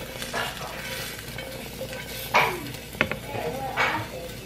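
A spatula scraping pan-fried fish out of a frying pan onto a plate, in several short scrapes, with sharp clinks of utensil against pan and plate about three seconds in. The hot pan still sizzles faintly underneath.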